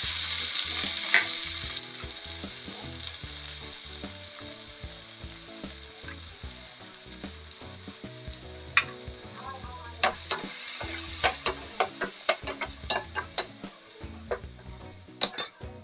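Chopped tomatoes dropped into hot oil in a stainless-steel frying pan for a dal tadka: a loud sizzle that fades within a couple of seconds to a softer steady sizzle. From about halfway, a spoon stirring the mixture clicks and scrapes against the steel pan.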